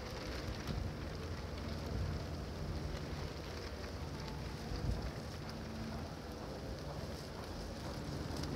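Steady outdoor city background noise: a low rumble of distant traffic with an even hiss over it.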